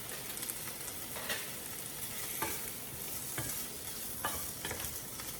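Shrimp, mushrooms and onions sizzling in hot olive oil in a pan, with a steady frying hiss and about six short scrapes or taps of a utensil as they are stirred.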